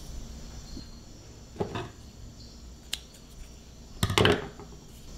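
Crickets chirring faintly and steadily. Over them come a few handling noises: a short rustle about one and a half seconds in, a sharp click near three seconds, and a louder rustle and knock about four seconds in.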